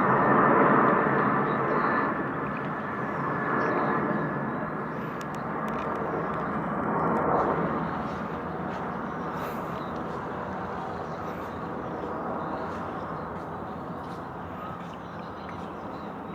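Distant engine noise, a broad rushing sound that is loudest in the first few seconds and fades steadily, with a faint high whine at the start.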